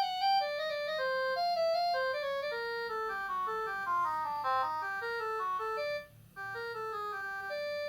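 A MaxCom Strong MM917 3G phone playing an electronic ringtone melody through its loudspeaker, a quick run of separate synth notes. The melody breaks off briefly about six seconds in and starts again.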